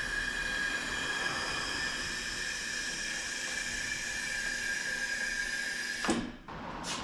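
A steady machine whine with a high, piercing tone, cutting off about six seconds in with a clunk, then a single click.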